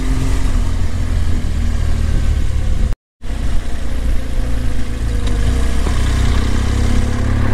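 BMW R1200 GS Adventure's boxer-twin engine running steadily at road speed, with wind and road noise over it. The sound drops out completely for a split second about three seconds in.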